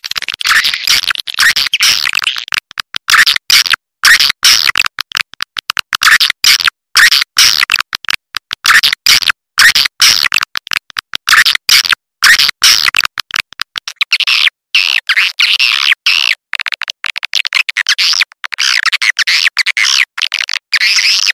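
Swiftlet lure call: loud, dense twittering and chirping of many swiftlets, broken by frequent brief gaps.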